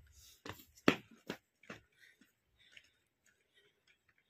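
Four sharp clicks or knocks about half a second apart in the first two seconds, the second the loudest, then only faint scattered ticks.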